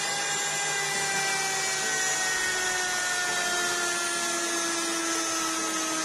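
Brushed universal motor from an automatic washing machine running off the machine on direct 220 V mains: a steady whir with brush hiss and a whine that slides slowly a little lower in pitch. It runs smoothly, showing the motor works.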